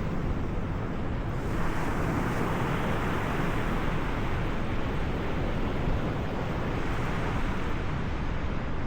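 Wind buffeting the microphone over a steady rushing wash of ocean surf, which swells about a second and a half in.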